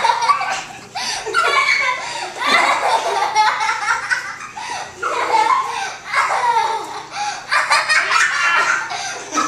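Children and adults laughing hard in repeated bursts during rough play.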